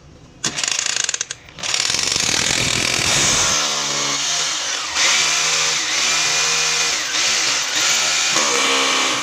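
Electric drill boring into ceramic floor tile. It runs in a short burst, stops for a moment, then drills steadily. The motor whine sags and recovers in pitch as the bit loads up in the tile.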